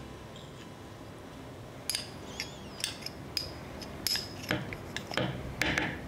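Metal spoon scraping and clinking against a small jar as peanut butter is scooped out. A series of sharp clicks and scrapes starts about two seconds in.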